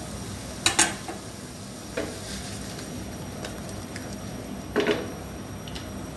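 Broccoli, cucumber and red pepper sizzling with a steady hiss as they are stir-fried in a wok-style pan, with sharp metal clatters of the spatula and pan: a double clatter just under a second in, a single one about two seconds in, and another double one just before the five-second mark as the pan is tossed.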